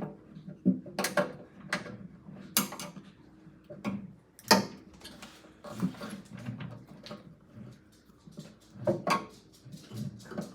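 Metal screwdrivers clicking and scraping against the plastic crisper drawer front of a Samsung RF28R7201SR refrigerator as it is pried off its tabs, in scattered sharp clicks and knocks with quieter gaps between them.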